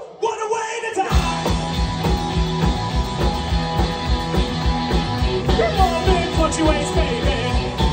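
Live rock band with electric guitars and drums: after a short break the full band comes back in about a second in with a steady beat, and a male singer's voice rises over it in the second half.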